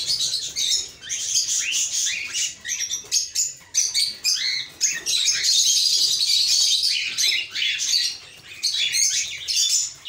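Many cockatiels in a breeding aviary chirping and calling at once: a dense, continuous chatter of short high calls, easing briefly near the end.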